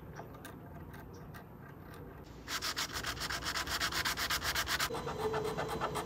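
Hand sanding of a bare carved wooden nameboard with sandpaper: a rasping rub, lighter for the first couple of seconds, then brisk and louder back-and-forth strokes from about two and a half seconds in.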